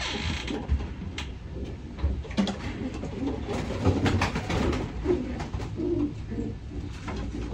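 Racing pigeons cooing: several low coos spread through, with scattered short clicks and rustles.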